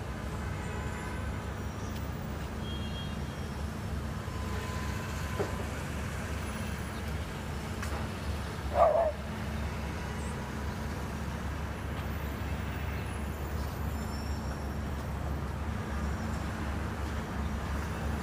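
Steady low rumble of city street traffic. About halfway through comes one short, higher-pitched sound, the loudest moment.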